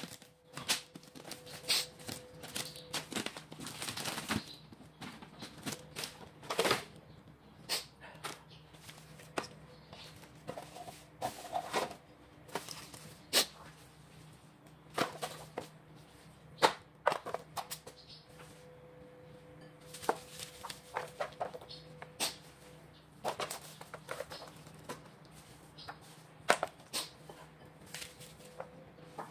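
Irregular clicks, crinkles and rustles of gloved hands handling raw meat and sliced onion and laying them into a disposable aluminium foil tray, over a faint steady hum.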